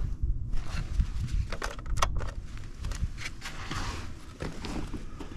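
Irregular clicks, knocks and scuffs of someone moving about and handling things in the snow, over a steady low rumble. The sharpest knock comes about two seconds in.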